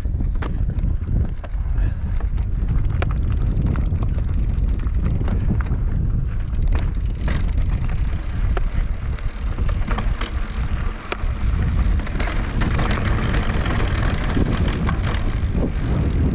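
A mountain bike rolling over rough trail, rattling with frequent sharp knocks, over a heavy low rumble of wind on the microphone.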